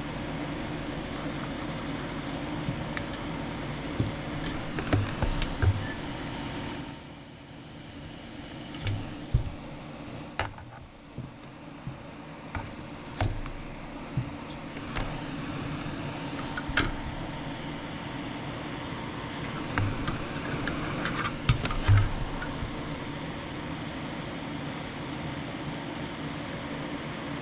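Steady mechanical hum with scattered light clicks, taps and knocks of small tools and parts being handled at a soldering bench; the hum dips for a few seconds about a quarter of the way in.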